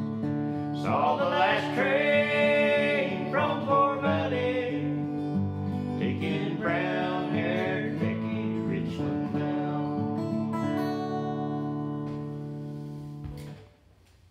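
Acoustic guitar with two men's voices singing the last line of a country-folk song in long held notes. The final guitar chord rings on and then stops abruptly about a second before the end.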